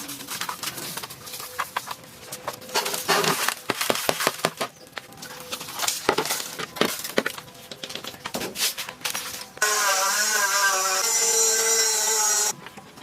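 Repeated clicks, knocks and scraping of hand work on a part. About nine and a half seconds in, a small power tool starts and runs steadily with a slightly wavering pitch, then cuts off after about three seconds.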